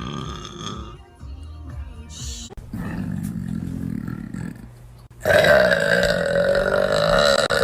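Young women belching: a long, low burp about three seconds in, then a louder, longer burp from about five seconds in, with music underneath.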